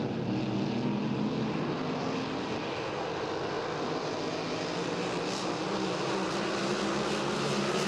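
Pack of Grand Prix racing hydroplanes running at speed, their engines a steady drone that grows slowly louder towards the end.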